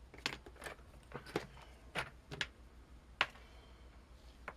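Light, irregular clicks and taps of small parts being handled as a soldering station is put back together, its cables and connectors being fitted: about eight knocks, the sharpest a little over three seconds in.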